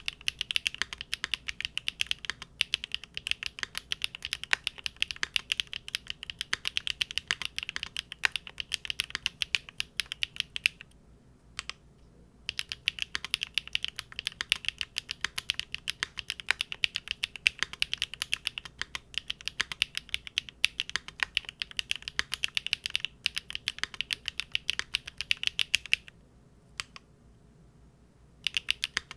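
Custom mechanical keyboard, a Linworks Big Whale with GEON Raw Zero switches on a polycarbonate plate, typed on in a quick, continuous stream of keystrokes. The typing pauses twice, around 11 seconds in and again about 26 seconds in, with a single keystroke in each pause.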